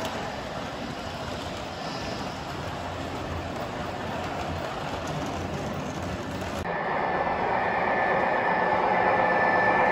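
Lionel O-gauge model trains running on three-rail layout track: a steady rolling hum. About two-thirds of the way through it switches abruptly to a louder, closer train sound with a steady whine.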